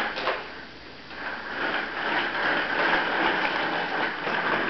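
Baby walker rolling and rattling across the floor: a couple of sharp clicks at the start, then a continuous plastic rattle from about a second in.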